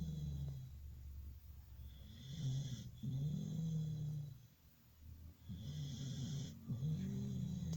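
A sleeping pet snoring, with a breath about every three seconds. Each breath carries a low rumbling snore and a hissing whistle, with a short quiet pause just before the last one.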